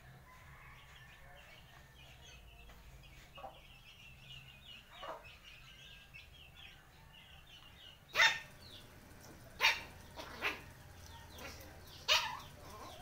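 Small dogs giving a few short, sharp barks in the second half, the first the loudest, over faint high chirping that runs through the rest.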